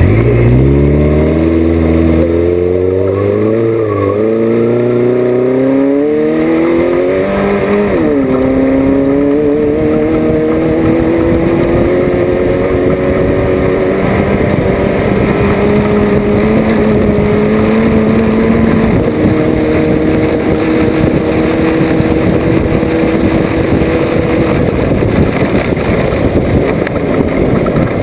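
Off-road race vehicle's engine pulling hard, its pitch climbing with two drops in the first eight seconds that sound like gear changes, then holding a nearly steady high speed, over constant rough rattling noise.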